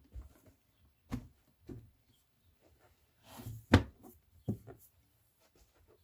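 A series of knocks and thumps from objects being handled and set down on a hard surface, the loudest about two-thirds of the way through.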